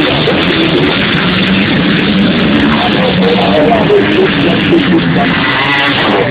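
Motocross bike engines revving, several pitches wavering up and down over one another, with one bike rising in pitch as it passes close near the end.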